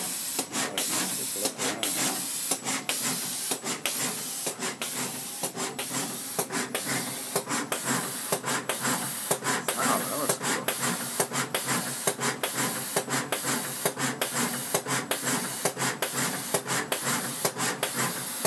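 SMT pick-and-place machine at work placing components on a circuit board: a steady hiss broken by brief dropouts about twice a second as the placement head moves through its cycle.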